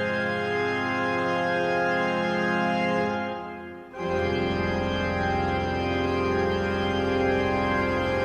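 Organ playing long held chords. One chord fades out about three seconds in, and a fuller chord with a deeper bass comes in a second later and holds.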